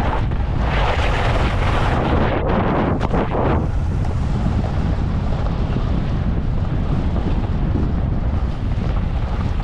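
Heavy wind noise buffeting the microphone, with a louder hissing rush from about half a second to three and a half seconds in.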